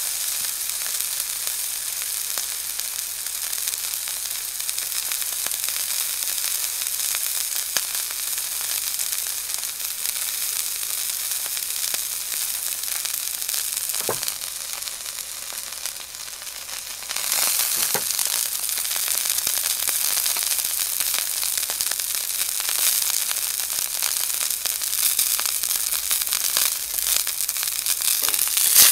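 Elk steak searing in hot oil in a pan: a steady sizzle with a few sharp pops. The sizzle drops briefly around halfway, then comes back louder.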